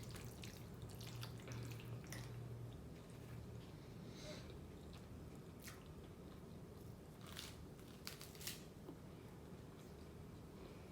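Close-miked chewing and wet mouth sounds of someone eating creamy fettuccine alfredo, quiet, with a few sharper clicks about seven to eight and a half seconds in.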